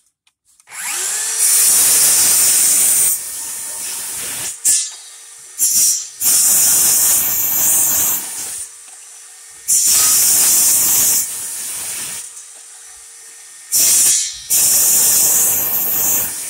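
DeWalt FlexVolt 60V Max 7-1/4" brushless cordless circular saw spinning up and cutting through a bone-dry, hard, rough-cut larch 2x8. A steady motor whine runs throughout, broken by several loud, hissing stretches as the blade is pushed through the wood, with quieter running in between.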